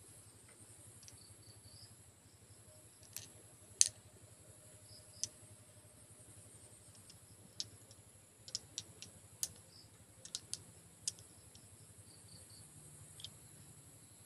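Small green glass bottles clicking against one another as they are turned over in a hand: scattered sharp clicks, the loudest about four seconds in, with a quick run of them between about eight and eleven seconds.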